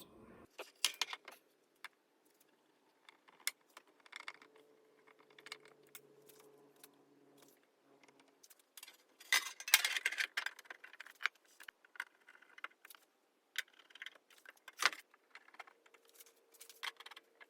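Scattered small metallic clicks, clinks and light scrapes from hand work with screws and the receiver's metal parts, busiest about ten seconds in.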